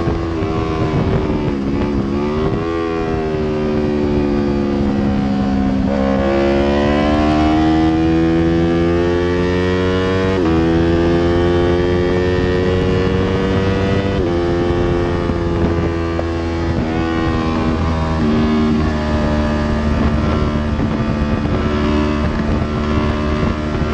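Yamaha R3's 321 cc parallel-twin engine at track speed, heard from on board: its pitch climbs as the revs build, then drops suddenly at each gear change, several times over.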